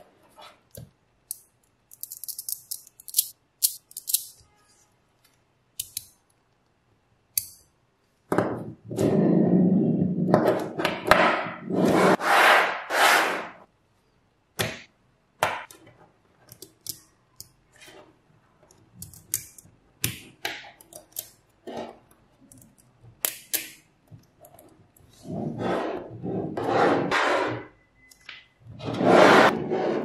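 Small magnetic balls clicking and snapping together under the fingers, with two longer stretches of dense rattling as clusters of balls are pressed, shifted and rolled on a hard tabletop.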